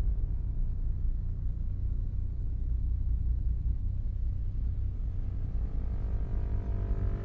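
Steady low droning rumble presented as a recording of the Taos Hum, a mysterious low-frequency hum. Near the end, higher held tones fade in over it.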